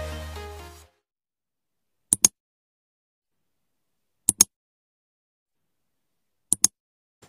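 Electronic intro music fading out within the first second, then silence broken by three quick double clicks about two seconds apart: the click sound effects of a subscribe-button animation.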